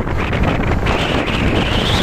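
Wind buffeting the microphone over the rumble and rush of a bus going by. About halfway through, a thin high whine comes in and slowly rises.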